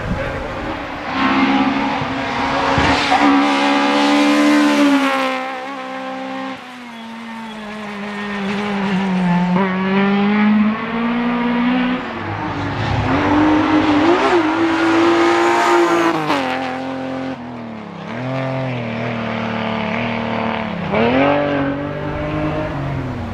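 Rally car on a tarmac stage, engine revving hard through the gears with repeated drops in pitch as it lifts off and shifts down for corners. It passes loudest twice, about 4 seconds in and around 14 seconds in.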